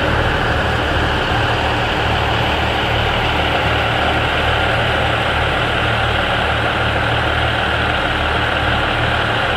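KiHa 85 series diesel multiple unit's Cummins diesel engines idling, a steady low rumble with a fine even pulsing.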